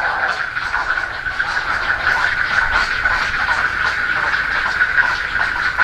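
Heron nestlings calling without pause, a fast chattering of many quick notes.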